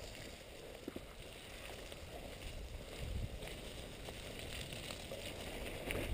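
Mountain bike ridden over a muddy dirt trail: a steady rumble of wind and tyre noise on a helmet-mounted action camera, with scattered short clicks and rattles.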